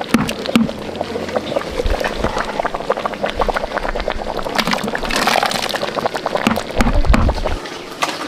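Hot cooked pig feed being ladled from a cooking pot into a plastic bucket: repeated pouring and splashing of the liquid mash, with scattered knocks of the ladle, loudest about five seconds in.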